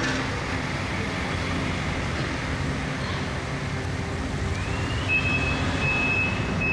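Ambulance engine running as it backs up, with its reversing alarm starting about five seconds in: a high steady beep repeating about every three quarters of a second.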